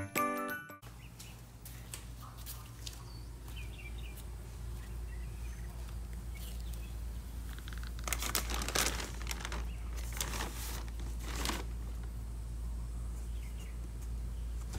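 A delivered package being handled: its plastic mailer bag and cardboard box crinkling and rustling in several short bursts over a steady low hum.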